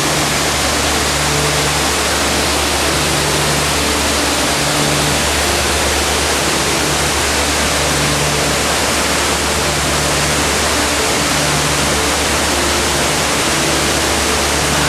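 Waterfall in Saarburg's old town rushing with a loud, steady roar.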